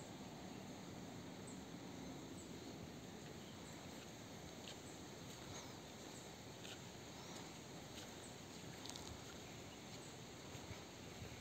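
Faint outdoor ambience: a steady low hiss with a few short, faint high chirps scattered through the middle.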